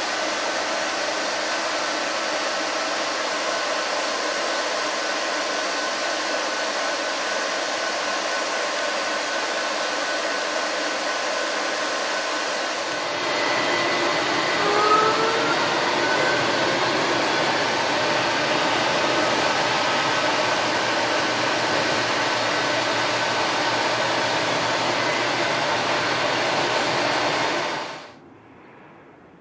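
Steady interior noise of a streetcar: a constant rush of fan and air-conditioning air with faint steady tones underneath. About halfway through it gets louder and deeper, with a couple of brief rising whines, and it cuts off abruptly near the end.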